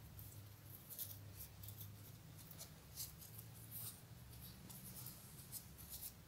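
Faint, scattered crackling rustles of crumpled celosia leaves being opened out by hand, over a low steady hum.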